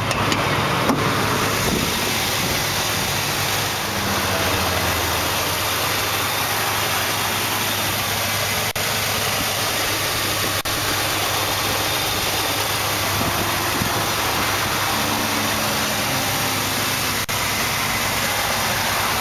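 A 1991 Chevrolet S10 pickup's engine idling steadily and smoothly, purring like a kitten, heard over the open engine bay.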